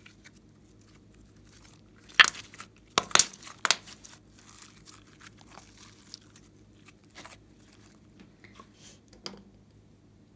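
Hands stretching and folding glossy glitter slime: sticky crackles and sharp pops, the loudest cluster of pops two to four seconds in, with fainter ones later.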